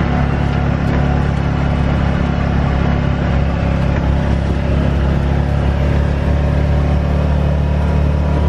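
Can-Am side-by-side utility vehicle's engine running steadily as it drives across a field at an even speed.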